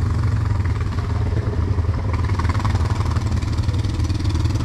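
Off-road bike engine running steadily at a loud, even level.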